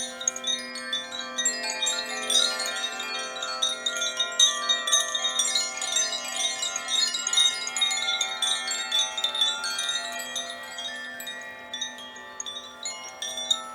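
Quartz crystal singing bowls ringing with several overlapping sustained tones, under a dense, rapid tinkling of high chime notes that thins out near the end and then returns.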